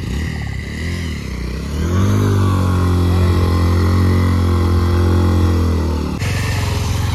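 Motorcycle engine revving while the bike is ridden through shallow river water: the pitch climbs about two seconds in and is then held high and steady. Near the end the sound changes abruptly to another steady engine note.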